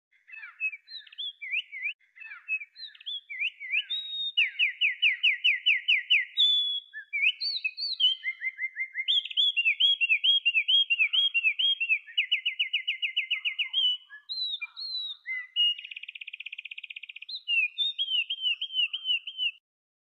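Wren singing: a long, loud run of varied high chirps and fast, even trills, with a very rapid buzzy trill about three quarters of the way through. The song stops just before the end.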